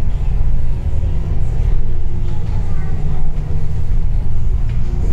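Steady low rumble of a bus in motion, heard from inside the passenger cabin, with faint voices in the background.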